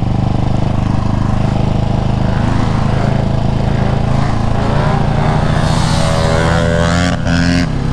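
Husqvarna 701's single-cylinder engine running while riding, the engine note steady at first, then climbing from about five seconds in as the bike speeds up and dropping away just before the end. Wind noise runs underneath.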